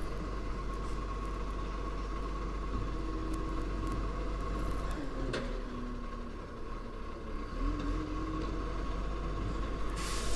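Garbage truck engine running down the street, a steady low rumble with a thin steady tone above it; its note rises, holds and falls a few times in the middle as the truck works.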